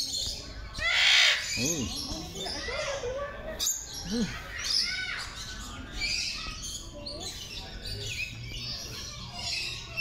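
A mix of birds chirping and squawking, with short calls overlapping one another; the loudest call comes about a second in.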